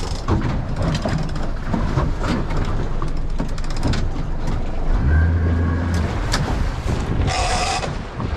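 Wind buffeting the microphone and water rushing along the hull of a small fishing boat under way, with knocks and bumps throughout. A steady low hum from the boat's engine stands out for about a second past the middle.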